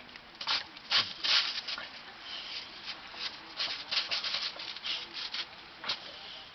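A boxer's paws and muzzle scuffing and scraping in crusted snow as it paws and noses at a ball, in irregular bursts, the loudest about a second in and a busy run past the middle.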